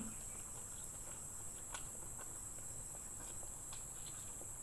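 Steady high-pitched insect chirring in the background, with a few faint soft clicks and smacks of eating.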